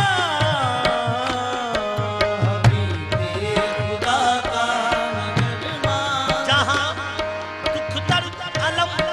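Qawwali ensemble performing a naat: a male lead voice sings with harmonium drones, tabla strokes and the chorus's hand-claps.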